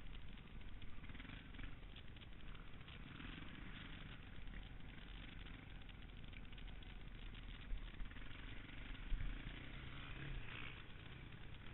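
KTM 525 enduro motorcycle's single-cylinder four-stroke engine running as the bike is ridden, heard faintly as a steady low rumble. There are two sharp knocks about two-thirds of the way through.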